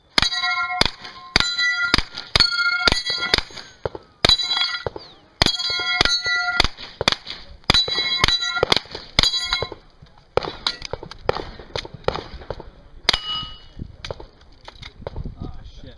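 Hi-Point 995TS 9mm carbine firing a rapid string of shots, many of them followed by steel targets ringing with a clang. After about ten seconds the shots thin out and grow weaker, with one more ringing steel hit about thirteen seconds in.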